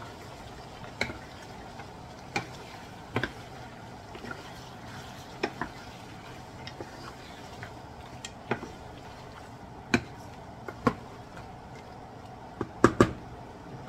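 Wooden spatula stirring chicken pieces in a pan, knocking and scraping against the pan at irregular intervals over a steady hiss of the pan cooking; two louder knocks close together near the end.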